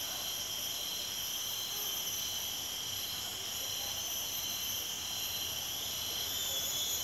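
Tropical rainforest insect chorus: several steady high-pitched trills and drones layered together, one of them coming in short even pulses about twice a second.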